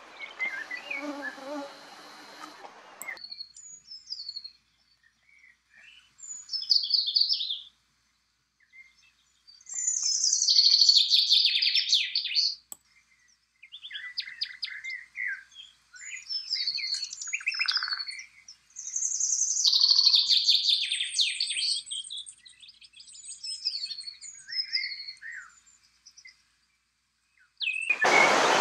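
A songbird singing: a series of chirped and trilled phrases, each a second or two long, with silent gaps between them. An outdoor noise bed fades out in the first three seconds, and the steady rush of a rocky mountain stream comes in right at the end.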